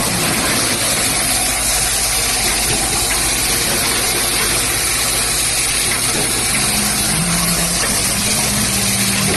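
Cap assembly machine running: its vibratory bowl feeders and feed tracks make a steady, dense mechanical hiss over a low hum.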